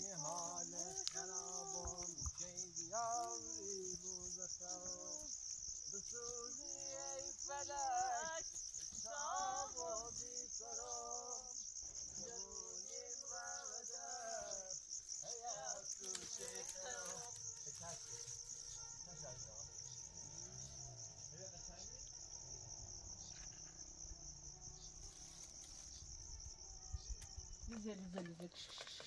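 Crickets chirring steadily at a high pitch. For about the first half a person's voice rises and falls over them, then only the chirring is left.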